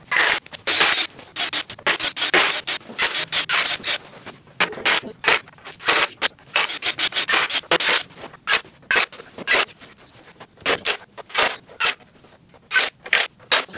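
Cordless drill/drivers running screws through wooden planks into a pallet frame, in many short bursts one after another.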